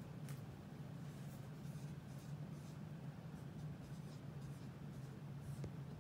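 Dry-erase marker writing on a whiteboard: a string of short, faint strokes over a steady low hum.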